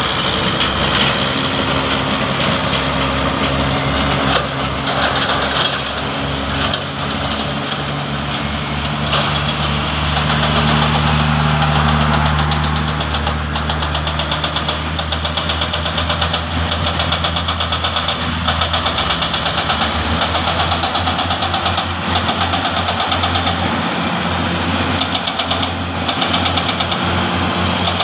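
Diesel engines of heavy earthmoving machinery running: a crawler bulldozer's engine working under changing load at first, then a steady rhythmic engine pulse through the second half.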